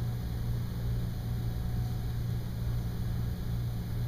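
Steady low hum of room background noise, unchanging throughout.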